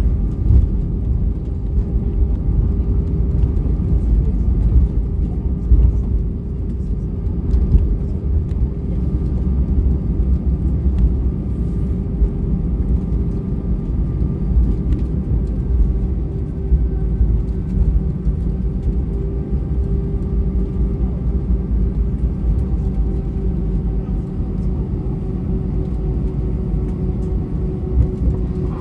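Airbus A320-232 cabin noise on the ground after landing: a continuous low rumble of the aircraft rolling over the tarmac, with a steady hum held throughout. The rumble is a little stronger in the first several seconds and then eases slightly.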